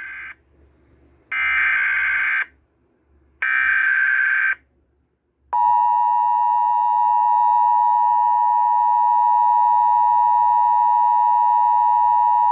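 Emergency Alert System broadcast tones, played from a computer's speakers and announcing a tornado warning. It opens with the end of one SAME header data burst and two more screeching digital bursts of about a second each, two seconds apart. About five and a half seconds in, the steady two-tone attention signal starts and holds.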